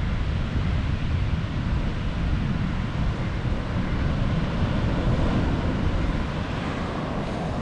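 Wind buffeting the microphone in an uneven low rumble over a steady rush of ocean surf.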